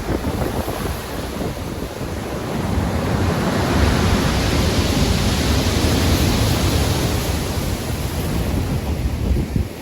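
Stormy sea surf with wind: a steady rush of waves that swells about three seconds in, is loudest midway, then eases off.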